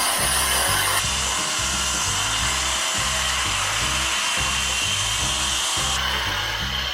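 Background music with a steady bass beat over a circular saw cutting old 2x6 deck boards. The saw noise changes abruptly about a second in and again near the end.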